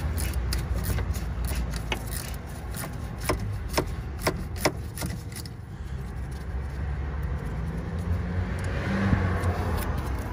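Socket ratchet clicking as the nut on a starter motor terminal is undone: a quick run of ticks, then a few louder single clicks. Near the end comes a soft rubbing as a gloved hand works at the wires.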